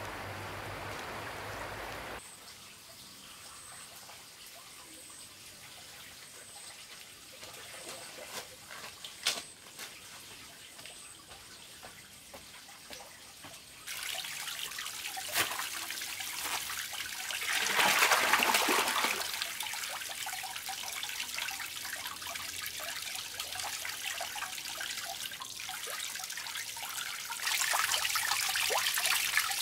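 Faint outdoor ambience with a few soft clicks, then, from about halfway through, water trickling and splashing from a pipe fountain over a rock into a small concrete fish tank. About two-thirds of the way in there is a louder rush of water as a bag of fish is emptied into the tank, and the trickle gets louder again near the end.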